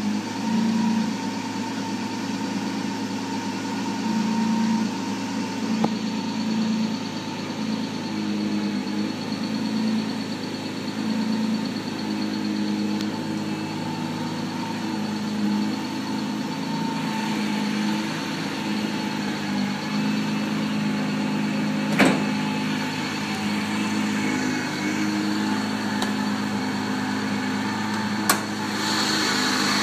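Supercharged Nissan 350Z's 3.5-litre VQ35DE V6 with a Vortech supercharger, idling steadily with an even low hum and no revving. A thin high whine sets in about six seconds in, and two sharp clicks come in the last third.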